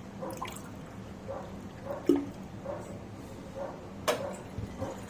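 Water poured from a glass into a cooking pan, with small splashes and drips. A sharp knock about four seconds in.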